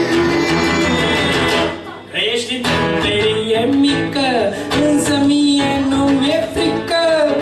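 A man sings a folk-style song, holding long sung notes over a strummed acoustic guitar. There is a brief drop in level about two seconds in.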